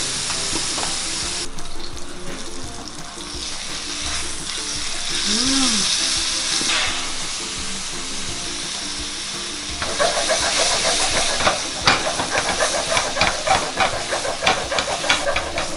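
Beef steak sizzling as it sears in a hot frying pan, over background music. In the last third, a run of quick clicks joins in.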